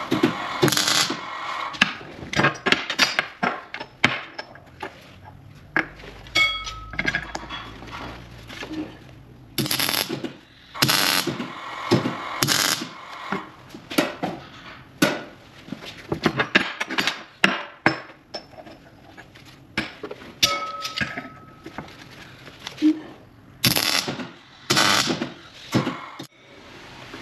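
Irregular clinks, knocks and taps of metal parts and hand tools being handled, a few of them ringing briefly.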